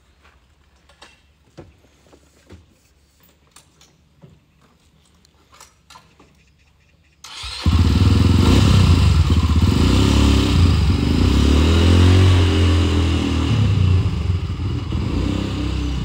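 Light clicks and knocks of things being handled, then about seven seconds in the red three-wheeled motorcycle's engine is heard running loudly and steadily as the trike pulls away, easing off slightly near the end.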